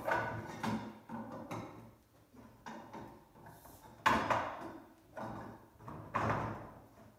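Metal frame tubes of a wheelbarrow knocking and clanking against each other and the wooden tabletop as they are fitted together, each knock ringing briefly; the loudest comes about four seconds in and another about six seconds in.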